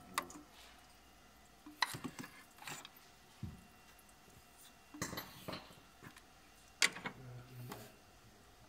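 Scattered metallic clinks and light knocks, about eight at irregular intervals, as metal engine parts and hand tools are handled around the water pump during a timing-belt job.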